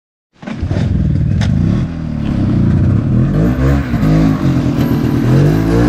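Snowmobile engines running and being revved, the engine pitch rising and falling again and again.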